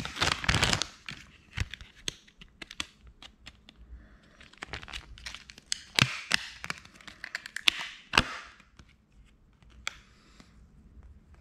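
Plastic packaging crinkling and crackling as a foil-backed soft-lure bag is opened and a clear plastic blister tray of lures is pulled out and handled. There is a dense crinkle at first, then scattered sharp clicks and crackles of the thin plastic, dying down about eight seconds in.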